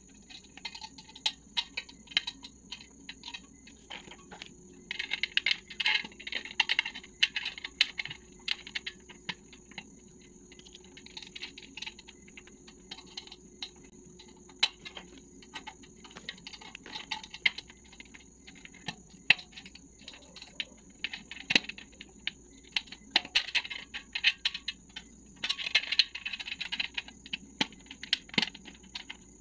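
Scattered small metallic clicks and taps as bolts are turned by hand into a metal stand frame and fitted parts knock together. Several bursts of plastic bag crinkling come in between, the longest a few seconds in and again near the end.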